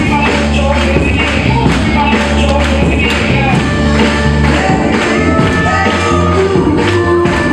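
Loud dance music with a heavy, steady bass beat and percussion.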